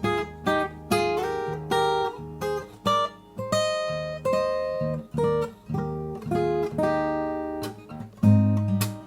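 Cort CJ5X acoustic guitar played solo: a run of picked and strummed chords, each left to ring, with a louder, fuller strum near the end.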